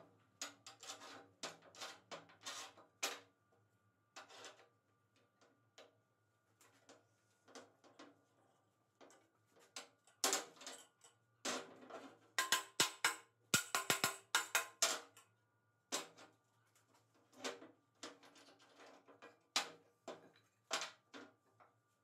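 Hammer taps and wooden blocks knocking against the steel bars and jaws of homemade long metal bar clamps during a test clamping. The knocks come at irregular intervals, with a dense run of quick taps about ten to fifteen seconds in.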